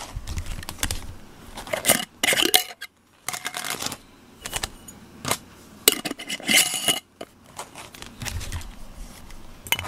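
A glass jar handled on a wooden slat table: a string of clinks, knocks and short scrapes, loudest about two seconds and six seconds in.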